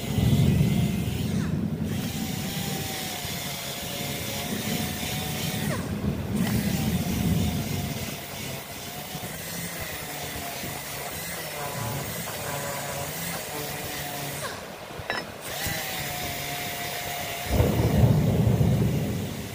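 Electric power tool running, a steady motor whine alternating with louder, rougher stretches, breaking off and starting again several times.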